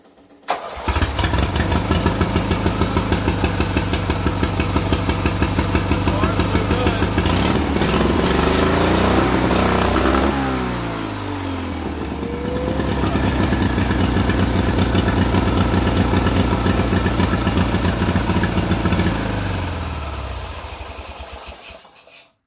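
Turbocharged twin-cylinder Briggs & Stratton lawn mower engine, fed through a blow-through motorcycle carburetor, starting about half a second in and running hard. It revs up around eight to ten seconds in, then drops back. It runs on, then winds down and stops near the end, the run cut short when the boost charge pipe blows off.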